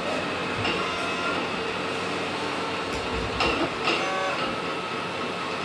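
A Fusion3 3D printer running. Its stepper motors give short whines that keep changing pitch as the print head moves, over a steady mechanical whir.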